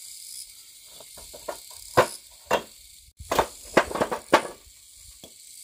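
Hard stones knocking together as they are set in place, five sharp knocks over about two and a half seconds.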